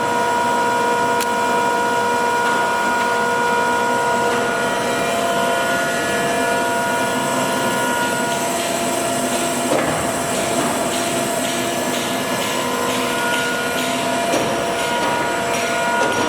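Jones & Lamson Model 5-3 ram-type turret lathe running, a steady mechanical whine with several held tones over a machine hum. About halfway through the tones shift, and a few light clicks follow.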